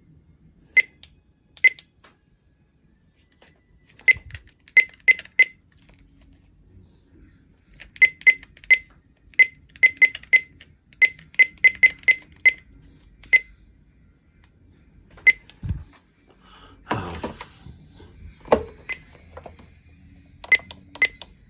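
Weather radio's keypad beeping as its buttons are pressed to set the clock: short high beeps, some single and some in quick runs of several presses. About two-thirds of the way through come a low knock and a rustle from the radio being handled.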